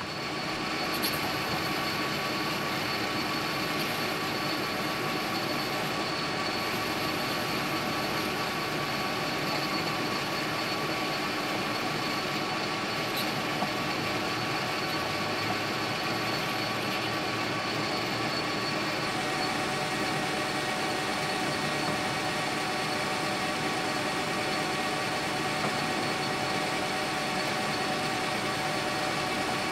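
Metal lathe running steadily while turning brass bar stock, a steady mechanical whine with a new tone joining about two-thirds of the way through.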